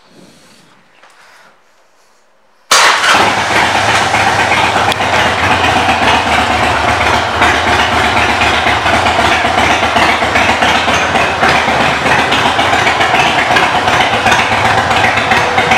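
Harley-Davidson Sportster 1200's air-cooled V-twin running through Vance & Hines exhaust pipes. It cuts in suddenly about three seconds in and then runs steadily at one speed, without revving.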